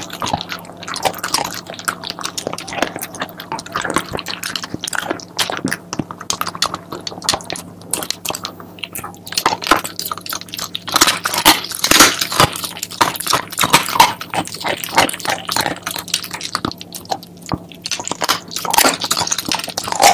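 A Shiba Inu chewing chicken feet: irregular close-up crunches and crackles of skin and small bones being bitten, with a louder, busier run of crunching from about 11 to 14 seconds in.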